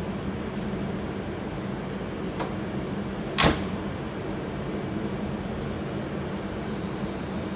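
Class 350 electric multiple unit standing at the platform with a steady hum. A single sharp bang like a door closing comes about three and a half seconds in, with a fainter click just before it.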